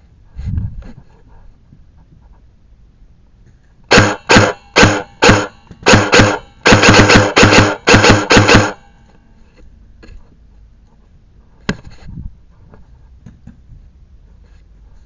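Airsoft rifle firing a string of about fifteen rapid shots over some four seconds, the shots coming faster toward the end, followed by a single sharp click a few seconds later.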